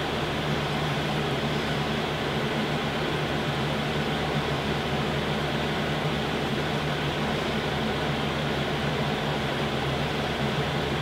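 Steady mechanical hum with an even hiss, like a fan running in a small room.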